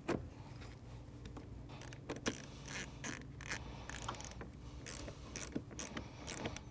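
Hand ratchet clicking in short, irregular runs, with light metal clinks, as the negative battery cable's clamp nut is tightened onto the battery post.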